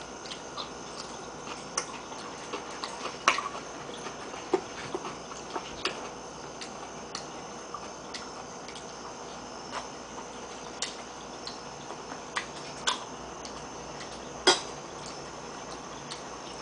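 Metal fork and spoon clinking now and then against a ceramic soup bowl and plate while eating: scattered single sharp clicks at no regular pace, the loudest near the end, over a steady faint hiss.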